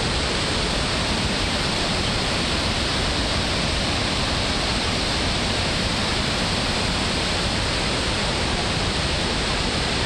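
A river waterfall pouring over a broad, low rock ledge, making a steady rushing of water that does not change.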